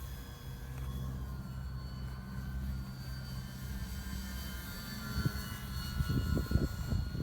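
RC airplane's motor and propeller whining steadily in flight, the pitch shifting slightly with the throttle. Low buffeting gusts build near the end.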